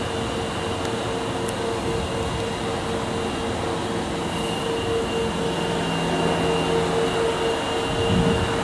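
Subway train standing at the platform, its onboard equipment giving a steady hum with a constant mid-pitched tone over station noise.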